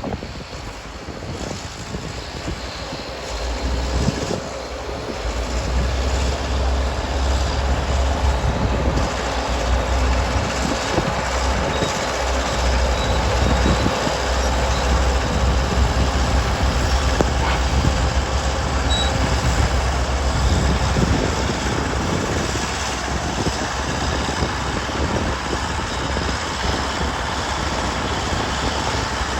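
Caterpillar D8 crawler tractor's diesel engine working under load as it pulls a scraper box through soil. The deep, steady rumble builds a few seconds in and eases somewhat near the end.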